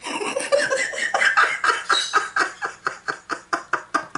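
A woman laughing loudly in a long run of quick, even bursts, about five a second.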